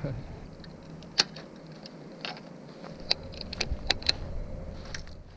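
Fishing reel and tackle being handled: a string of scattered sharp clicks and light rattles, about seven over a few seconds, over a faint hiss.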